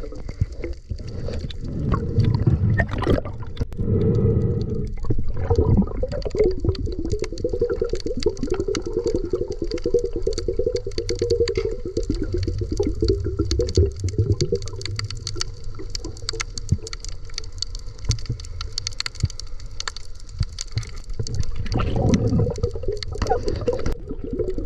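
Water gurgling and bubbling steadily, with a dense run of small clicks over a low rumble.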